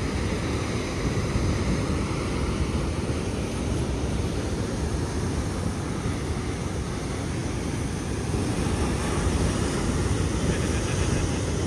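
Wind buffeting the microphone in a steady low rumble over the continuous wash of breaking surf.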